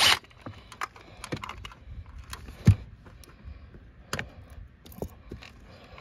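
Light clicks, taps and rattles of small parts and hand tools being handled during work on car dash panels and wiring, with one sharper knock about two and a half seconds in.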